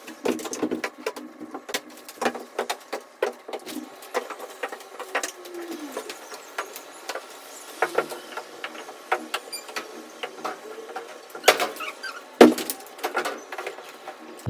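Household cleaning sounds: irregular clicks and knocks of objects being handled and wiped, with a short squeak about five seconds in and a louder knock near the end.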